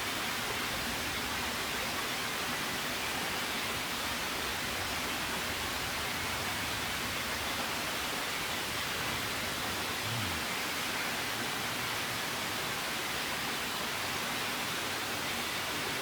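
A steady, even rushing noise like running water, with no distinct events except a brief low thump about ten seconds in.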